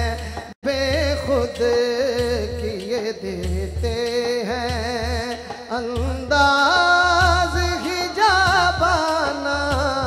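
A male naat reciter sings a long, ornamented melismatic passage into a microphone, his voice wavering and sliding between notes and rising to louder held high notes about six seconds in, over a low pulsing beat. The sound cuts out for an instant about half a second in.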